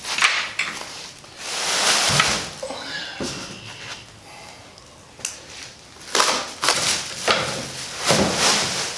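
Clear plastic wrapping crinkling and rustling as it is pulled off a speaker stand, in several uneven bursts with quieter gaps between.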